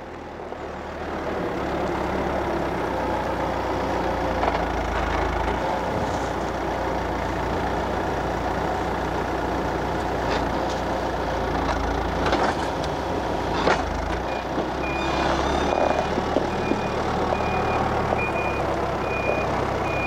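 Hidromek backhoe loader's diesel engine running under load as its front bucket pushes fill into a trench, with a few knocks from the bucket. About three-quarters of the way in, a reversing alarm starts beeping at a steady pace as the machine backs up.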